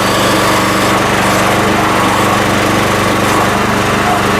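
Towable backhoe's small engine running steadily just after being started.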